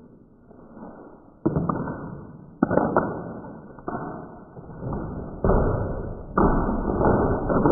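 Handfuls of peanuts thrown at a person, about five times, each a sudden hit followed by a noisy tail that fades over about a second; dull and muffled.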